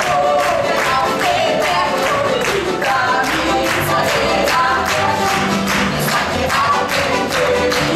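A live band playing an upbeat song with women singing, over a steady, even beat.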